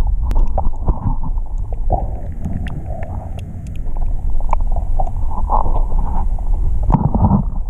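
Underwater ambience recorded through a camera housing: a steady low rumble of water movement with scattered faint sharp clicks, and a louder surge of water noise near the end.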